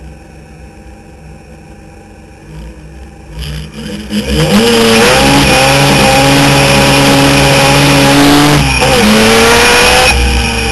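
Rotary engine of a single-seater hillclimb race car, heard from the cockpit. It runs quietly at first, then about four seconds in revs up hard and gets very loud as the car pulls away, holding high revs. Near the end its pitch drops and climbs again twice, like gear changes.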